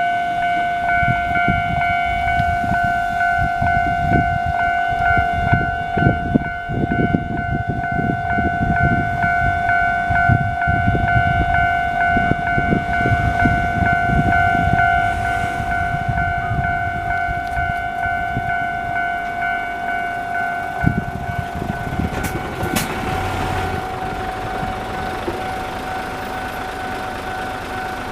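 Japanese railway level-crossing alarm ringing at its normal volume, a steady electronic two-tone bell that shifts slightly higher about three-quarters of the way through. Underneath, a train rumbles over the crossing with a dense run of wheel clatter that dies away near the end.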